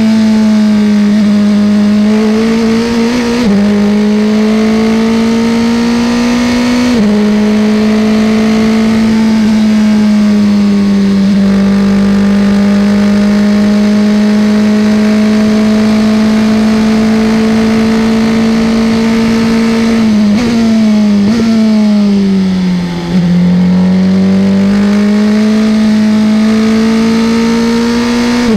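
Formula 3 single-seater engine heard from the cockpit under racing load. It accelerates with two quick upshifts in the first few seconds, each one a sudden drop in pitch, then holds a nearly steady high pitch flat out for several seconds. About two-thirds of the way through it downshifts under braking, the pitch stepping and sliding down, before it picks up again and rises as the car accelerates out of the corner.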